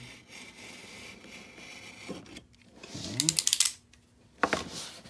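A handheld cutter blade drawn along the seal of a cardboard box, a faint steady scraping, followed about three seconds in by loud crackling as the cardboard and tape are pulled open, and one more sharp crackle near the end.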